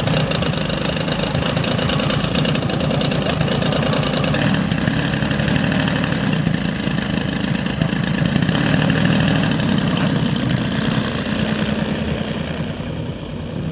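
The engine of a giant-scale Gee Bee R2 radio-controlled model racer plane running steadily on the ground, spinning its propeller.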